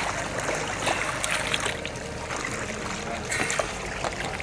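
Water splashing and trickling around a wetsuited swimmer moving and kicking his fins at the surface of shallow water, with irregular small splashes.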